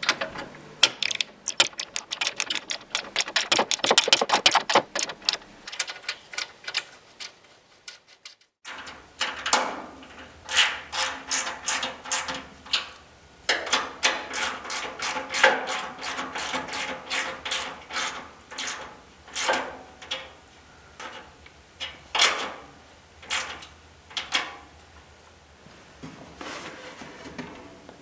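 Socket ratchet wrench clicking as bolts are tightened: a fast, even run of clicks for the first several seconds. After a short break come slower, irregular groups of clicks and clatters, one group per swing of the handle.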